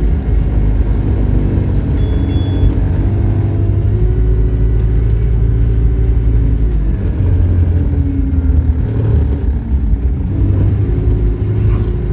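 Engine and drivetrain of a Go-Ahead London SEN52 double-decker bus heard from inside the passenger saloon: a steady, loud rumble with engine tones that rise and fall as the bus drives along. A short high tone sounds about two seconds in.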